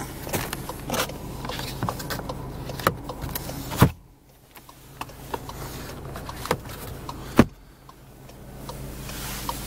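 Clicks and knocks of a hand handling the camera and touching the rear-view mirror and interior trim inside a Volkswagen Polo GTI's cabin, over a steady low hum. Two knocks stand out, one a little before halfway and one about three-quarters through.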